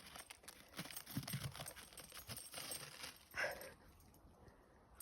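Faint, irregular crunching footsteps in snow, with a brief louder scuff about three and a half seconds in.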